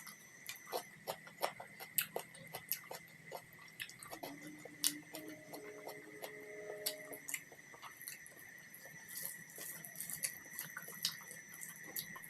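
Close-miked eating sounds: chewing with a quick run of wet mouth clicks and smacks, over a faint steady high whine.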